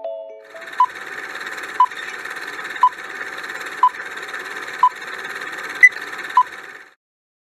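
Quiz countdown timer sound effect: a steady hiss with a short tick about once a second and a sharper click near the end, stopping suddenly after about six seconds.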